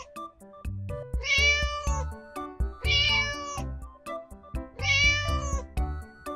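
Three drawn-out cat meows about two seconds apart, over background music with a steady beat.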